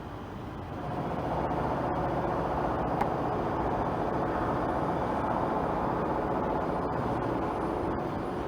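A steady mechanical running sound with a hum, swelling about a second in and then holding steady.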